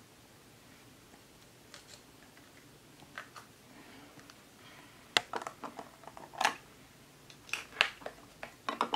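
Faint room tone, then from about halfway a run of sharp plastic clicks and taps: a clear plastic catch cup and the lid of a small clear plastic enclosure being handled and set down on a tabletop.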